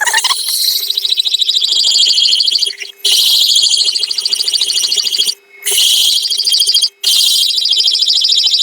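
Water-cooled diamond hole saw on a drill grinding into a ceramic mug, giving a loud high-pitched squeal that stops briefly three times. The bit is not cutting well.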